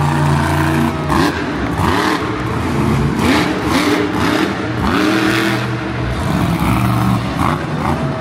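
Monster truck engine revving up and down again and again as the Bigfoot truck drives and pops wheelies around the arena floor.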